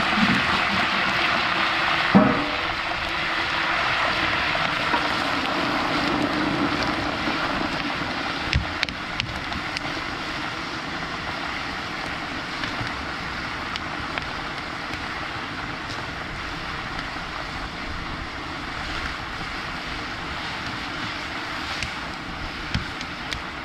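Raw meat sizzling in a large cauldron of hot oil over a wood fire: a steady hiss that slowly dies down, with one knock about two seconds in and a few light clicks later.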